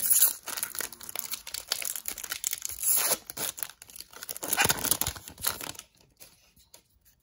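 A foil Magic: The Gathering Zendikar Rising booster pack wrapper being torn open and crinkled by hand. It crackles for about six seconds, with the loudest tearing around three and five seconds in, then stops.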